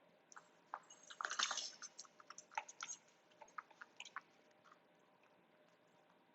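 A dog chewing a training treat: a run of faint, irregular crunches and clicks that stops about three-quarters of the way through.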